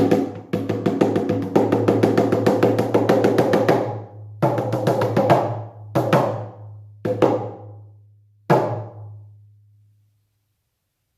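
Shamanic hand drum: a fast, even run of beats for a few seconds, then a handful of separate strikes that ring out and fade to silence, the drumming coming to an end as the journey closes.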